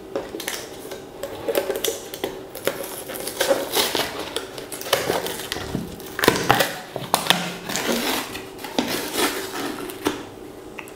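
The screw lid of a plastic protein-powder tub being opened and its inner seal torn and peeled off: an irregular crinkling and crackling with scattered clicks.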